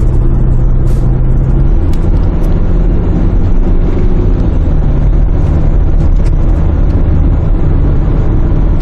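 Kia Grand Carnival minivan's diesel engine and tyre noise heard from inside the cabin while cruising on an expressway: a steady hum whose engine note drops slightly about two seconds in.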